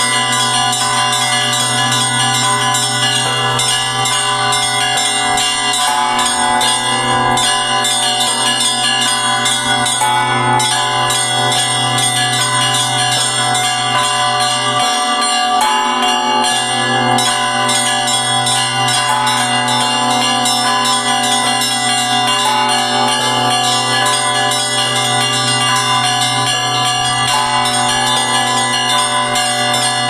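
Russian Orthodox church bells in an open wooden belfry, rung by hand with ropes: a continuous peal of many overlapping bell tones, smaller bells chiming over the steady deep hum of a large bell.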